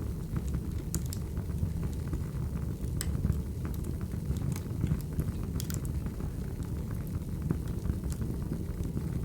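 Crackling wood fire: a steady low rumble with scattered sharp pops and crackles.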